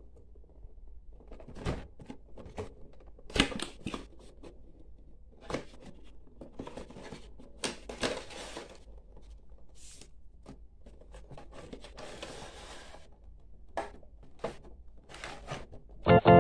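Cardboard box and plastic packaging handled and opened by hand: irregular crinkles, taps and scrapes, with a longer sliding rustle about twelve seconds in. A loud, steady organ-like chord starts just before the end.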